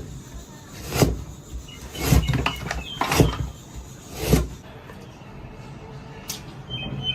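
Knife slicing lemon and apple on a cutting board: about five cuts, roughly a second apart.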